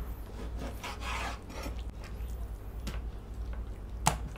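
Raw chicken breast being handled and cut with a knife on a wooden cutting board: soft rubbing and scraping sounds, with one sharp knock about four seconds in.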